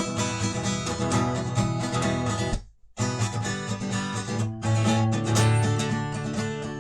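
Guitar strumming chords in an instrumental break between sung verses, with a brief full stop about two and a half seconds in before the strumming picks up again.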